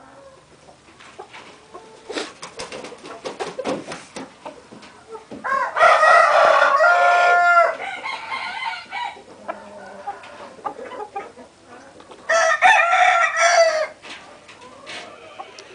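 Oriental game fowl rooster crowing twice: a long crow of about two seconds just before the middle, and a shorter one near the end, with scattered clicks and rustles between them.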